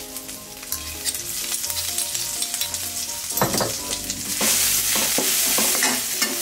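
Garlic, coriander root and pepper paste sizzling in hot oil in a metal wok, with a steel spatula scraping and tapping against the pan as it is stirred. The sizzle grows louder about four seconds in.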